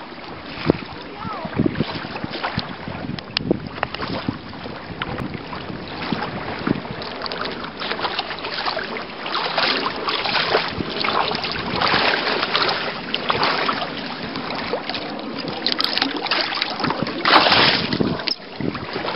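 Gusty wind buffeting the microphone over shallow water lapping and splashing, with irregular surges, loudest near the end.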